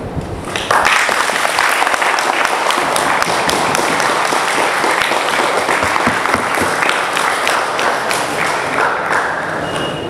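Audience applauding, starting abruptly just under a second in and easing off slightly near the end.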